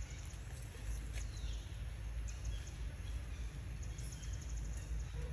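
Outdoor ambience: a steady low rumble with faint, scattered high-pitched chirps and ticks.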